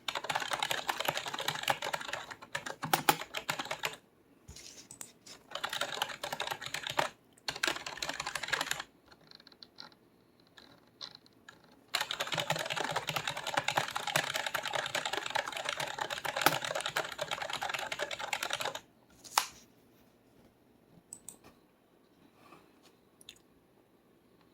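XUNFOX budget mechanical keyboard being typed on in fast runs of rapid key clicks separated by pauses, followed by a few scattered single keystrokes near the end.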